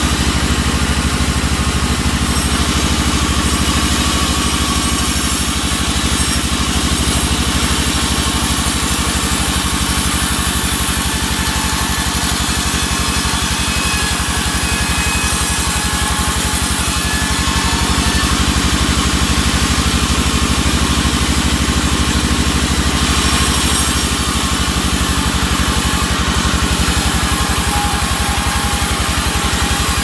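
Band sawmill running steadily, its drive motor pulsing evenly under a continuous high hiss as the blade rips albasia timber into rafter boards.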